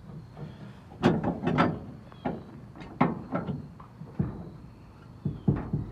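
Metal jack stands and a wooden board clunking and knocking as they are set in place under a raised pickup bed, in several short groups of knocks. The stands are going in to hold the lifted bed up safely.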